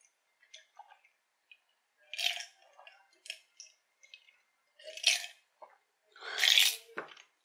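Close-miked drinking from a glass mug: about four sips and swallows with noisy breaths between them, the longest and loudest a breathy exhale near the end, followed by a short knock.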